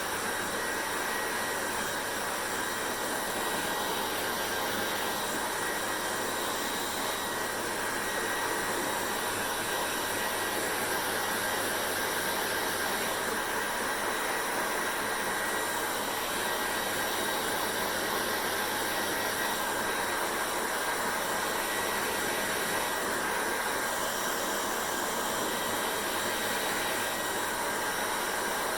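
Hair dryer running steadily: an even rush of blown air with a constant motor hum and a faint high whine.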